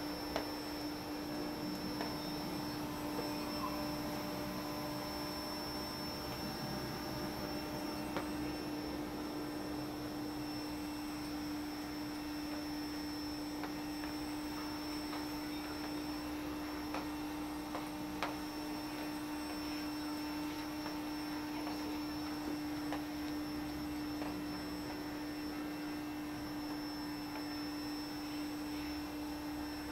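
A steady electrical hum, one even tone held throughout, with a few faint sharp ticks.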